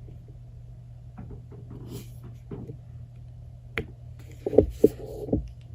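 Handling noise as a USB-C cable is plugged into a phone: light clicks and knocks, with one sharper click about two thirds through and a few soft thumps near the end, over a steady low hum.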